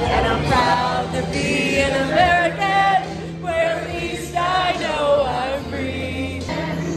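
A patriotic song: singing voices, choir-like, over a steady instrumental backing.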